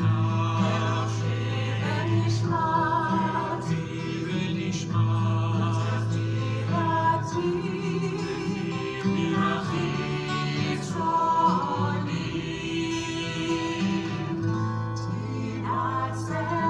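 Music: several voices singing a melody together, with held notes over a sustained low accompaniment.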